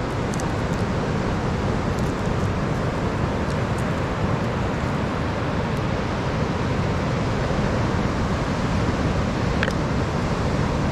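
Steady rush of surf on a beach mixed with wind rumbling on the microphone, with a few faint clicks scattered through it.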